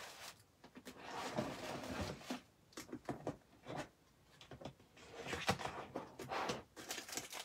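Faint rustling with scattered clicks and small knocks as someone rummages through a bin of craft supplies, with longer spells of rustling about a second in and again after five seconds.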